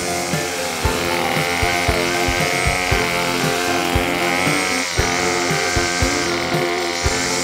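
Background music with a steady beat, over the whine of a string trimmer spinning its line through grass.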